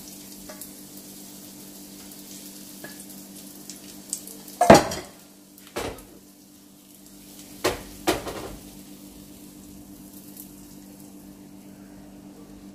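Metal clanks of a flat tava pan and steel batter bowl knocking on a gas stove: four sharp knocks, the loudest about a third of the way in, over a faint sizzle of gram-flour batter on the hot pan.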